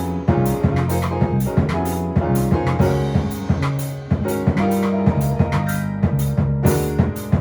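Instrumental music: a Latin-style piece on keyboard, with a drum kit playing a busy beat of sharp strokes under held chords.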